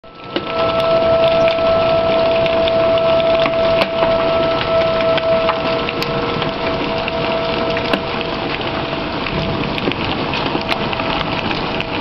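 Hail and heavy rain pelting the yard, with many sharp ticks of hailstones striking among the steady hiss of the rain. Behind it, a tornado warning siren holds one steady tone that slowly swells and fades.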